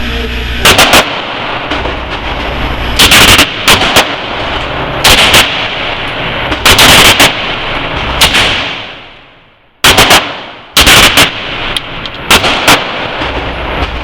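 Handgun shots fired in quick succession, often in close pairs, about a dozen in all, so loud that the recording clips and distorts. The sound fades out about two-thirds through, then another string of shots follows.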